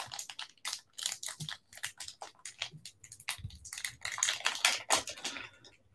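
Plastic wrapper of a sealed trading-card pack crinkling and crackling in irregular bursts as fingers pick at it and pull it open; the pack is hard to get apart.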